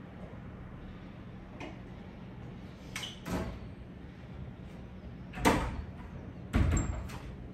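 Wooden wardrobe doors being shut: two sharp knocks about a second apart near the end, the second deeper and heavier. A quieter clatter about three seconds in as a shirt is taken from the wardrobe.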